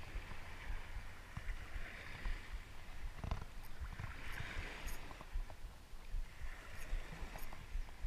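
Shallow sea water sloshing and washing, swelling about every two and a half seconds, with a low rumble of wind on the microphone and a few light clicks.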